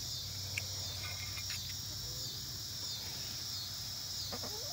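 A steady high-pitched insect chorus of late-summer crickets, with a slow regular pulse in its level. Chickens start clucking near the end.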